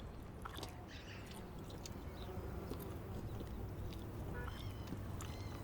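Steady low outdoor rumble with scattered faint clicks and a few short, faint high chirps in the second half.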